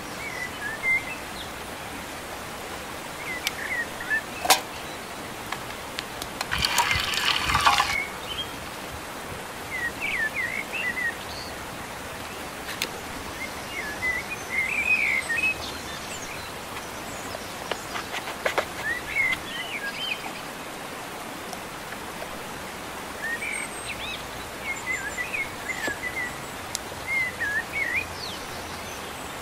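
Small birds chirping on and off over a steady outdoor background hiss. A sharp click sounds about four and a half seconds in, and a rough rustling noise lasts about a second and a half around seven seconds in.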